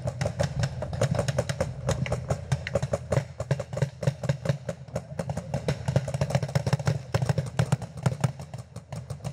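Paintball markers firing: many sharp pops, several a second, in irregular bursts over a steady low rumble.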